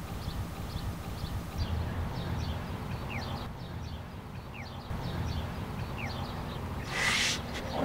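Outdoor ambience: a steady low wind rumble on the microphone with scattered faint bird chirps, and a short hiss about seven seconds in.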